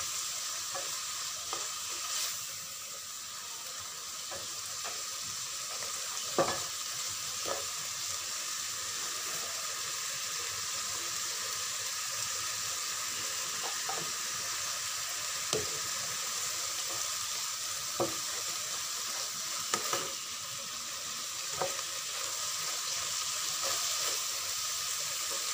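Chicken strips, onion and green pepper sizzling in a frying pan, with a steady hiss. A spatula stirs them, scraping and tapping against the pan every second or two.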